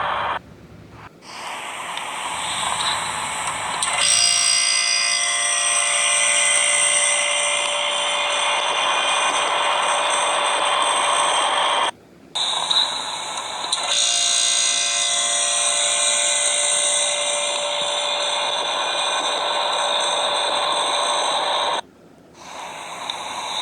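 Oasis dehumidifier starting up and running: its reciprocating compressor and fan build up over the first few seconds, then settle into a steady hum with a whine over it. The owner believes the compressor is a Tecumseh. It is heard as a phone recording of older camera footage, with some wind noise, and the sound briefly drops out twice.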